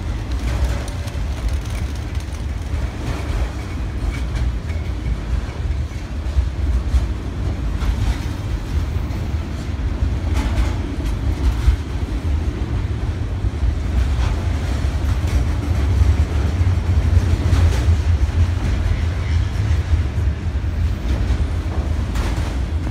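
Autorack freight cars of a long train rolling past: a steady low rumble with scattered wheel clicks.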